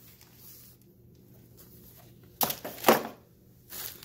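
Two sharp knocks about half a second apart, a couple of seconds in, from a black leather belt and its buckle being handled and set down, with faint rustling around them.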